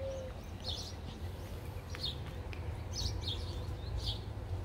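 Small birds chirping in the yard: short high chirps, about two a second, over a low steady rumble.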